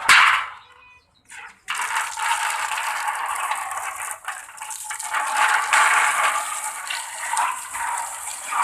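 A short clatter at the start, then from about two seconds in a steady rush of running water splashing, as bird droppings are washed off a birdcage.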